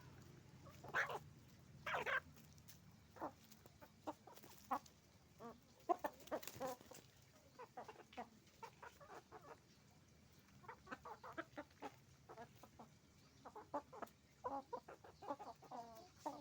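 Chickens clucking in a flock: many short, separate calls overlapping one another, with a couple of louder squawks in the first two seconds.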